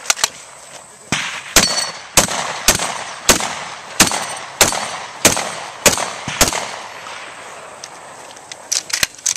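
Competition shotgun fired in a fast string: about a dozen sharp shots, roughly two a second, each trailing off briefly. The shots stop about two-thirds of the way in, and a few light clicks follow near the end.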